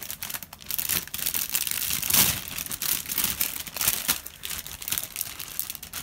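Plastic bags around model-kit runners crinkling and rustling as they are handled and shifted in the kit box, loudest about two seconds in.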